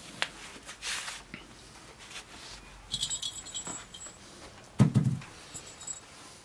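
Light rustling and patter of a small puppy moving on a cloth backdrop. About halfway through, a plastic cage ball is moved and jingles for about a second, and a little later comes a dull thump, the loudest sound.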